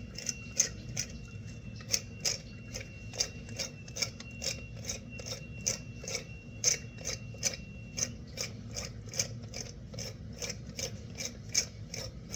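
Pepper mill being twisted to grind black peppercorns: a steady ratcheting, rasping click about three times a second.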